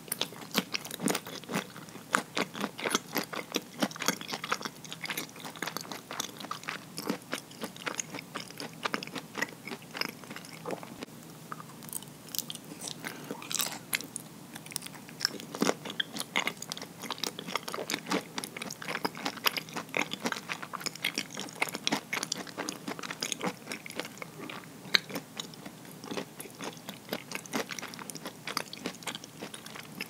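Close-up mouth sounds of chewing soft, sticky nama habutae rice cake topped with walnut pieces: a dense, steady run of short clicks and smacks.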